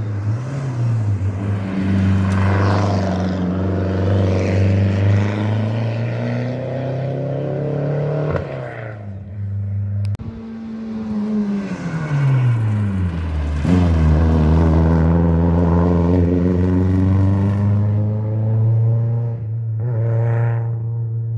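Rally car engine held at high revs. About halfway through, the pitch drops steeply, then the engine holds a steady note again.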